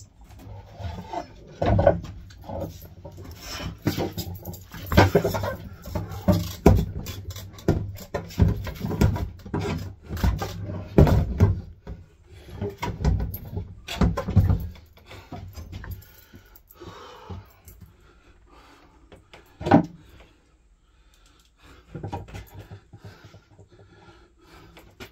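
A man grunting and breathing hard as he lifts a heavy Navien NFC boiler, its metal case knocking and scraping against the wall bracket and plywood as it is hung. Busy clatter for the first fifteen seconds, then quieter, with a single sharp knock about twenty seconds in.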